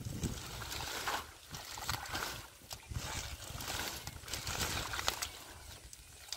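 Hands splashing and sloshing in shallow muddy water among water hyacinth, in irregular bursts.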